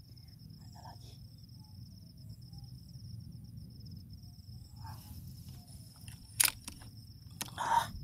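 A steady high-pitched insect trill over a low rumble of wind and handling noise. A sharp click about six and a half seconds in and a short, louder rustle near the end.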